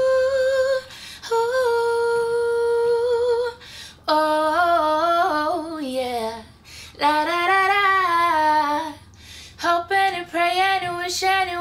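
A woman singing a cappella, without accompaniment: two long held notes at first, then several shorter, ornamented phrases with vibrato and short pauses between them.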